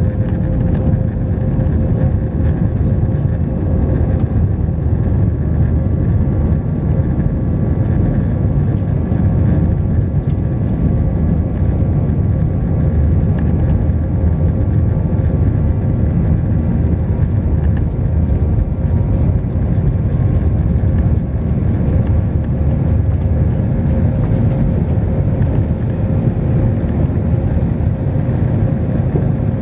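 Airbus A320 jet engines at takeoff power heard inside the cabin over the wing: a heavy, steady rumble with a steady whining tone through the takeoff roll and liftoff.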